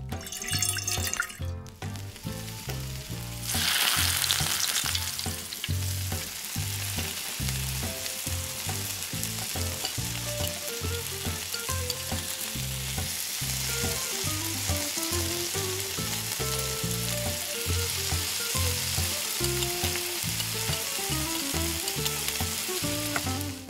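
Food frying and sizzling in a small pan, starting suddenly and loudly about three and a half seconds in, then holding steady. Soft background music runs underneath.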